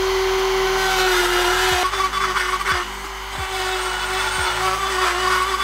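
Dremel rotary tool running at a steady high-pitched whine, then grinding into the steel plate of a bar stool swivel base from about two seconds in to bore out a bolt hole. The pitch wavers under the load.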